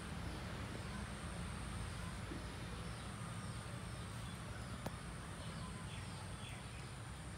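Outdoor background noise: a steady low rumble and a thin high steady drone, with a few faint short chirps near the middle and a single sharp click about five seconds in.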